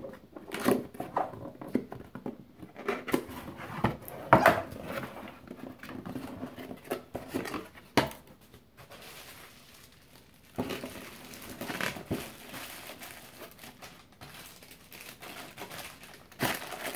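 Cardboard box and bubble-wrap packaging handled, with irregular crinkling and rustling and scattered knocks as a bubble-wrapped power supply is packed back into its retail box. A louder burst of crinkling comes about four seconds in, and a single sharp knock follows about eight seconds in.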